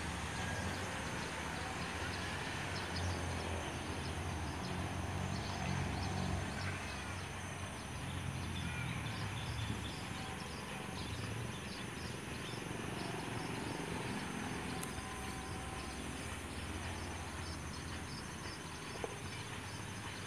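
Steady outdoor riverside background noise with a low rumble, and a faint, rapidly repeated high chirping through the middle stretch.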